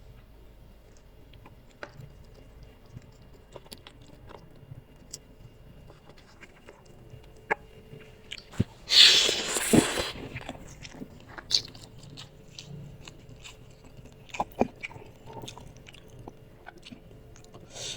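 Close-up eating sounds of spicy instant noodles: small wet chewing and mouth clicks, with one loud noisy slurp lasting about a second, about nine seconds in.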